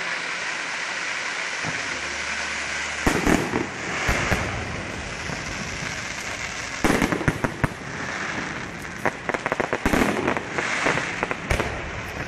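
Aerial fireworks display: shells bursting with sharp bangs and crackle, first about three seconds in, again around seven seconds, then a quick run of bangs from about nine to ten seconds and another near the end, over a steady background hiss.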